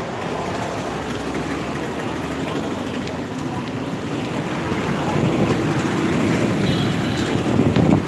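Street traffic noise on a busy town road, growing louder over the last few seconds as a vehicle draws near.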